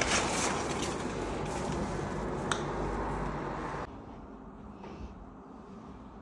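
Steady noise of road traffic coming in through an open window, with one sharp click about two and a half seconds in. About four seconds in it drops suddenly to quiet room tone.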